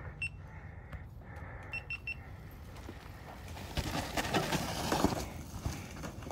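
A downhill mountain bike rides past close through mud, a noisy rush with clicks that swells and fades between about three and a half and five and a half seconds in. Before it come short high electronic beeps, one just after the start and then three in quick succession about two seconds in.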